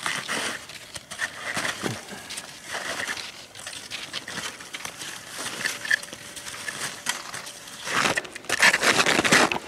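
Snowshoe steps crunching in snow, roughly one crunch a second, growing louder and denser about eight seconds in.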